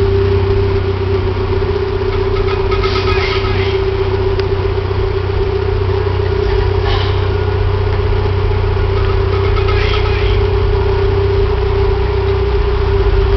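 An engine running steadily at idle, with a constant hum and a strong steady tone.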